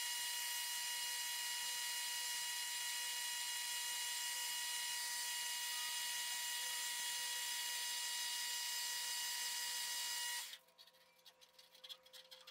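Metal lathe running steadily, a constant whine over a hiss, while it turns a synthetic resin handle blank. The sound cuts off suddenly about ten and a half seconds in, leaving only a few faint clicks.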